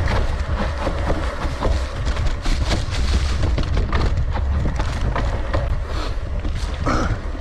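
Wind buffeting the microphone in a steady low rumble, over many sharp clicks and knocks of a mountain bike rattling over a rough dirt trail.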